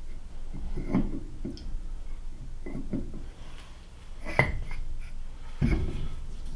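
Rear bushing gear of a South Bend Heavy 10 lathe spindle knocking and clicking against the steel spindle as it is slid and rocked by hand. There are a few scattered knocks, the sharpest about four seconds in and a duller thump near the end. The gear has a lot of slop on a grooved, worn stretch of the spindle, and its bore is thought to be egg-shaped.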